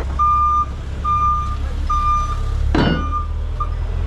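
Vehicle backup alarm beeping, three steady beeps about a second apart and then weaker ones, over the low steady rumble of an idling truck engine. A brief louder burst of noise comes about three seconds in.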